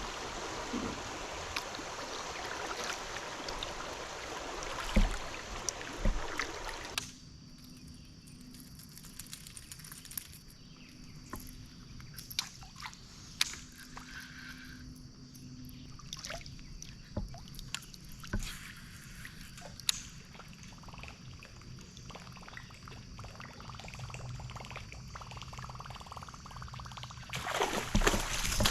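Water sloshing and trickling around a kayak, with scattered small knocks and clicks. The steady water noise drops away suddenly about seven seconds in and swells again near the end.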